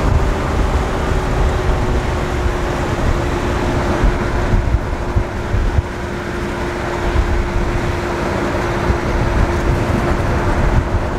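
Inside the cabin of a 1962 Cadillac Sedan DeVille with a swapped-in small-block Chevy V8, cruising at road speed: steady engine drone with road and wind noise, and a faint hum held at one pitch.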